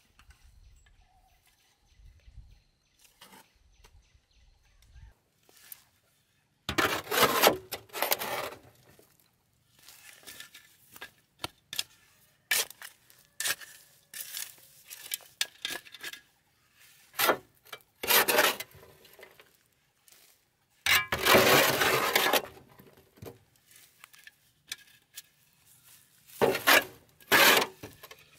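Loads of soil and dark compost dropped onto bare, stony dirt ground, each landing with a loose crunching rush. They come in an irregular series starting a few seconds in, and the longest is about three-quarters of the way through.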